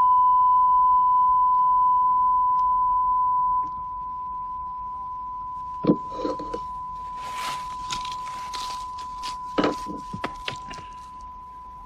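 Television test-card tone: one steady beep, loud for the first few seconds, then dropping and carrying on more quietly. A few knocks and short rustling noises sound over it.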